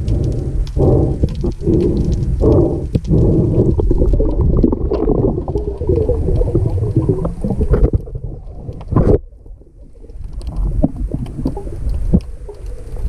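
Muffled underwater rumble and water noise heard through a camera's waterproof housing, swelling in pulses at first, with a couple of sharp knocks about eight and nine seconds in and a short dip in level just after.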